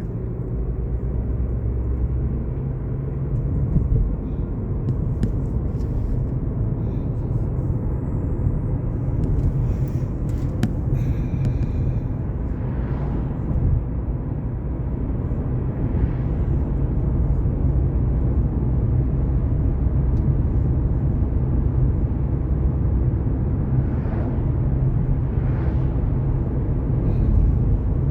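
Steady low road rumble inside a moving car's cabin: engine and tyre noise while driving, with a few faint ticks about ten seconds in.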